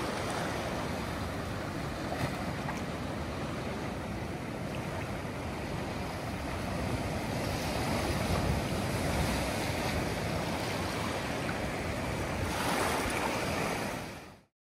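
Ocean surf washing in over rocks and sand, a steady rushing wash that swells a little twice before fading out near the end.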